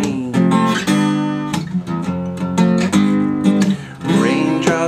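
Acoustic guitar strummed hard, chord strokes coming about twice a second.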